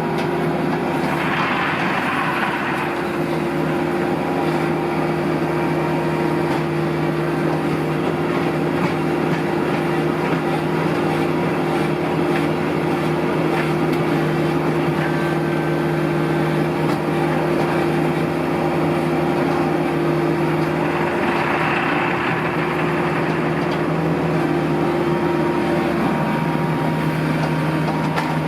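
An engine runs steadily at a constant pitch, with a brief higher hiss near the start and again about three quarters of the way through.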